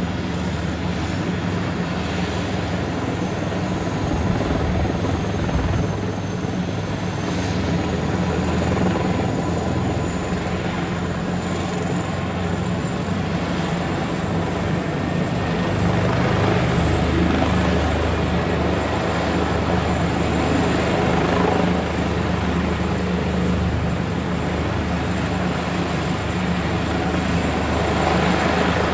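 Intensive-care transport helicopter running on its pad ahead of take-off: a steady rotor and turbine noise with a thin high whine, growing slightly louder about halfway through.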